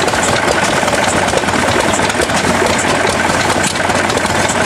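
Hit-and-miss stationary gas engines running, a steady, dense mechanical clatter of quick clicks and knocks.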